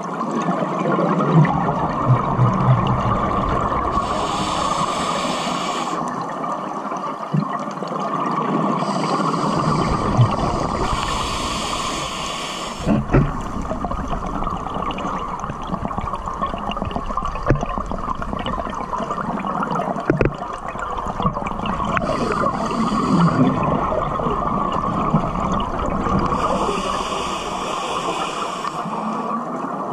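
A scuba diver breathing through a regulator underwater: a hissing inhalation every several seconds and the rumbling, gurgling bubbles of the exhalations, over steady water noise.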